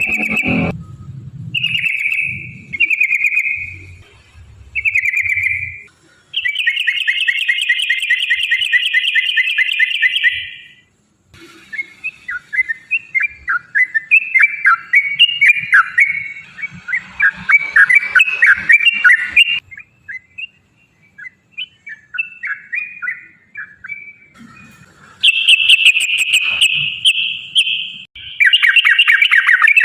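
Yellow-vented bulbul (trucukan) singing loudly in short bubbly phrases and long fast rolling trills ("ropel"), with a stretch of choppy chattering in the middle. This is the sort of song played to caged bulbuls to set them singing.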